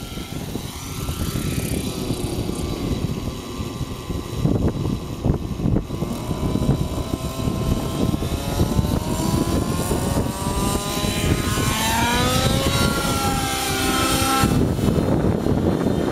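Nitro-powered Thunder Tiger Raptor 90 RC helicopter's two-stroke glow engine and rotor blades running in flight, a rising whine over several seconds in the second half that breaks off into a rougher, rushing sound shortly before the end.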